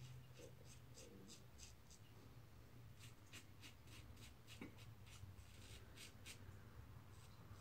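Safety razor scraping lathered stubble on the upper lip in short, quick strokes: faint rasps about four a second, a pause of about a second, then a longer run of rasps.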